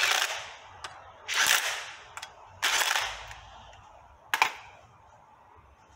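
Cordless driver running in three short bursts as the water pump pulley bolts are snugged down, followed by a single sharp knock a little over four seconds in.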